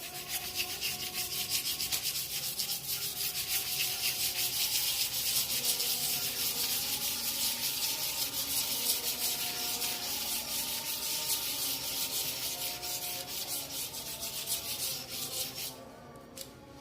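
Fast back-and-forth scrubbing on the metal of an engine block, rubbing off rust and grime. It goes on steadily and stops abruptly about a second before the end.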